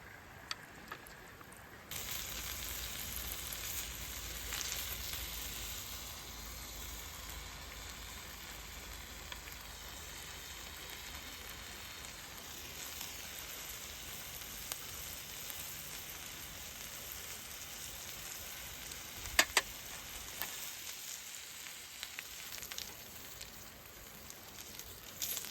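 Food sizzling in a hot pan, starting abruptly about two seconds in, with two sharp clicks near the end.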